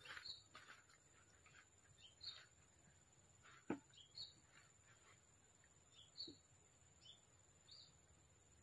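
Faint short high bird chirps repeating every second or so, with one sharp click a little after halfway.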